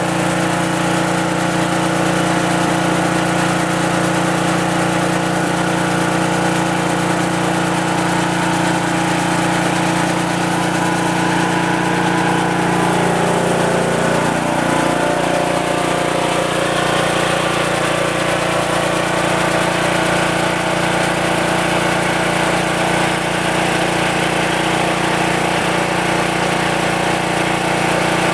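Two-blade chaff cutter (fodder chopper) running steadily under its motor. Its pitch sags slightly about halfway through and then holds at the lower note.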